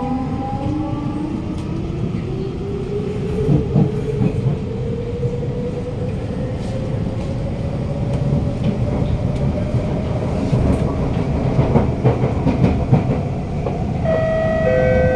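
Siemens C651 train's GTO-VVVF traction motors whining as the train accelerates away from a station, heard from inside the carriage. The whine rises steadily in pitch over running rumble and wheel clicks at the rail joints, and near the end it changes to several steady tones.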